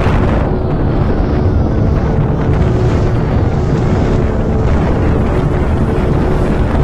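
Strong wind buffeting the microphone: a loud, steady rumble with no letup.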